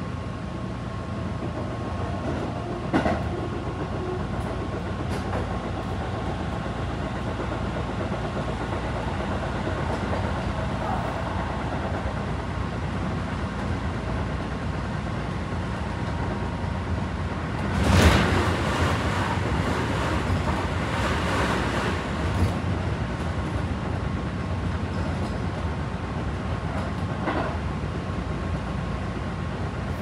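Interior running noise of a Tobu 9050 series train's unpowered control trailer car (KuHa): a steady rumble of wheels on the rails with a few light clicks, and one brief loud burst about eighteen seconds in.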